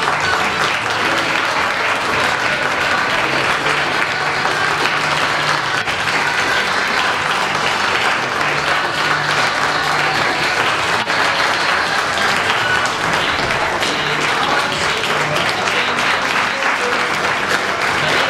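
Theatre audience applauding steadily, with music playing under the clapping.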